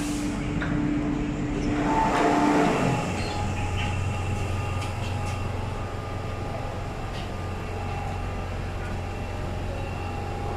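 MTR M-Train heard from inside the car while stopped at a platform: a steady hum, with a short rush of noise about two to three seconds in, after which a different steady hum from the train's equipment carries on.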